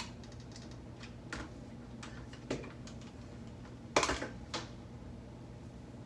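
A hair crimping iron's plates clicking as it is clamped and released on sections of hair: about five scattered clicks, the loudest about four seconds in, over a steady low hum.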